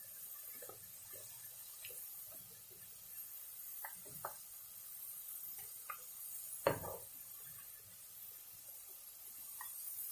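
Potato slices deep-frying in hot oil, a steady faint sizzle, with scattered light clicks and taps of a metal slotted spoon stirring them in the pan; the sharpest tap comes about two-thirds of the way through.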